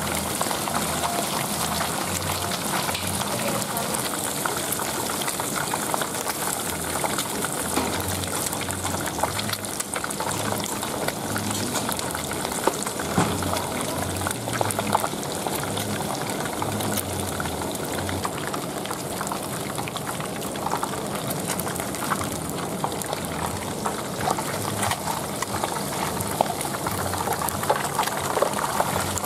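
Whole catfish deep-frying in a wok of hot oil: a steady, dense sizzle and crackle of bubbling oil.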